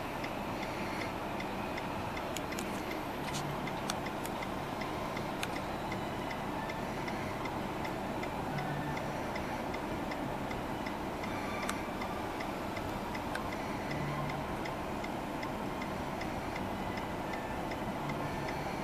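Steady, regular ticking over a constant background rumble and hiss, with a few sharper clicks here and there.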